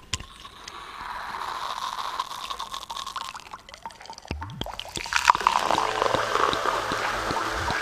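Experimental electronic soundscape music: a noisy, crackling texture with scattered clicks and a held high tone, joined about four seconds in by low held tones as it grows louder.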